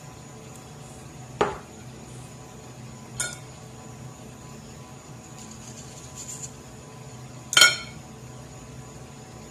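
Dishes and a metal utensil knocking and clinking together: a dull knock about a second and a half in, then two ringing clinks, the loudest near the end.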